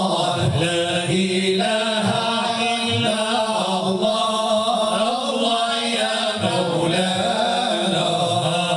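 A group of men singing Moroccan madih, Islamic devotional praise chant, together into microphones with no instruments. The singing is steady and continuous.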